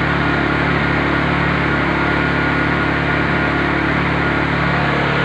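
Honda EU20i inverter generator's single-cylinder four-stroke engine running at a steady speed with a freshly cleaned carburettor, no longer stalling.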